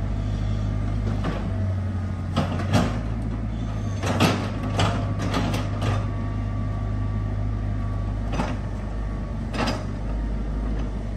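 CAT tracked hydraulic excavator's diesel engine running steadily as the machine pivots on the spot, with a dozen or so sharp metallic knocks and clanks from its steel tracks and bucket.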